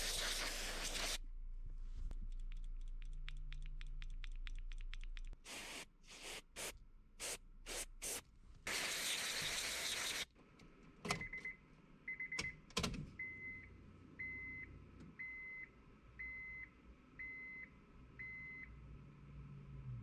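Aerosol electrical contact cleaner sprayed onto a seat belt buckle switch: a long hiss, then a run of about eight short bursts and another long hiss. After a few sharp clicks, a car's dashboard warning chime beeps seven times, evenly, a bit faster than once a second.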